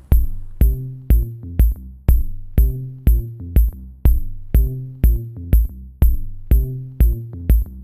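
Electronic music with a steady drum-machine kick about twice a second, under a low bass line and short pitched synth notes.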